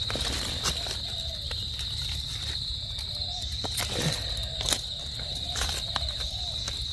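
Steady high-pitched trilling of insects, with scattered crackles of dry leaf litter as a gloved hand digs through it.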